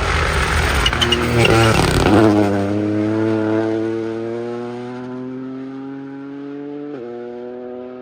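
Rally car passing at speed, loud at first, then its engine note trails away, slowly dropping in pitch and fading as it goes off into the distance.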